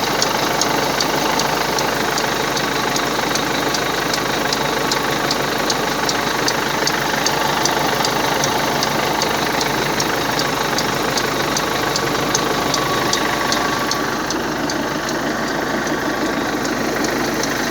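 Cold Mercedes Euro 5 engine idling with a regular 'çık çık' ticking, about three ticks a second, over the steady running sound. The owner wonders whether the tick comes from the air-conditioning compressor.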